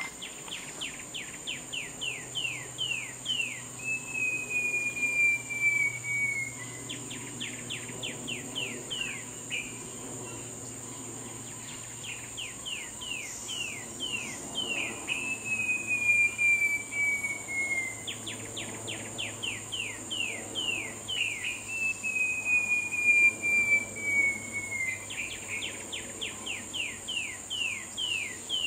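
Short-tailed babbler singing. Each phrase is a quick run of about ten sharp downslurred notes, usually followed by a long, slowly falling whistle, and the phrase repeats every five or six seconds. A steady high insect drone runs underneath.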